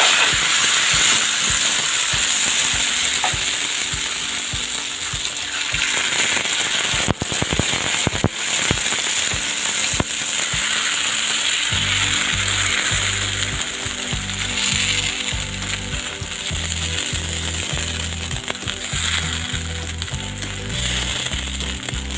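Pancake batter sizzling in hot cooking oil in a frying pan, a steady hiss with scattered crackling pops of spattering oil.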